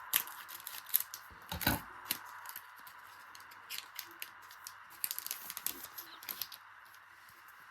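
A foil Pokémon booster pack being opened and its cards handled: scattered crinkles, rips and card clicks, busiest about five to six and a half seconds in.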